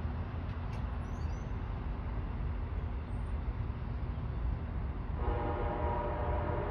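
Low rumble of a passenger train running away down the line, then about five seconds in a train horn starts sounding a steady chord and holds it.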